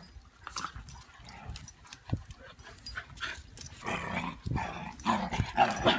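A group of young dogs playing together, with short yips and barks that grow busier and louder over the last two seconds.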